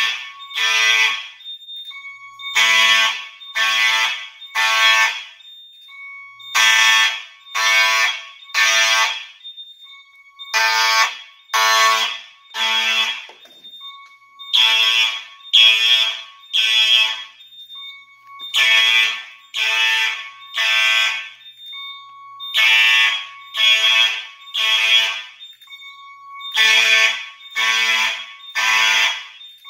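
Simplex fire alarm horn strobes, an electromechanical horn and an electronic horn, sounding in the code-3 temporal pattern: three half-second blasts a second apart, then a pause, the group repeating every four seconds. A fainter steady tone carries on in the gaps between the groups.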